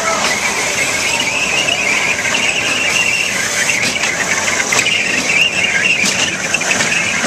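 Miniature kiddie-ride train's wheels squealing on the tight curve of its circular track: a high, wavering squeal that keeps on without a break.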